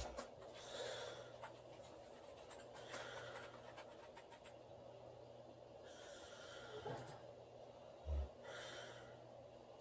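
A sleeping woman breathing softly, with one short, deep snore about eight seconds in.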